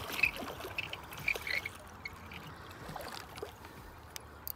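Faint water sloshing and trickling as a hooked catfish is worked in to the bank, with a few small clicks scattered through it.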